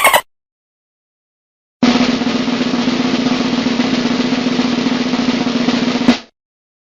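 Snare drum roll lasting about four seconds, ending on a single sharp hit.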